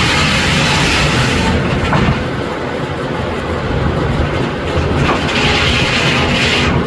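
Steam engine running with a steady clattering, train-like mechanical beat, and steam hissing loudly at the start and again near the end.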